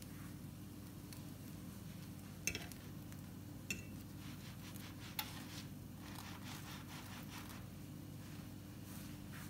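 Grilled cheese sandwiches sizzling faintly in a nonstick frying pan over a steady low hum, with three light clicks and taps as a hand handles the sandwiches in the pan.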